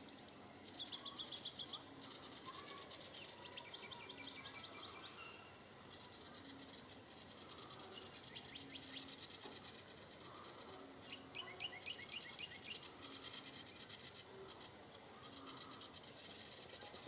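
Willie wagtail giving its harsh, rapid scolding chatter in repeated bursts of one to three seconds. It is a mobbing call aimed at a kookaburra.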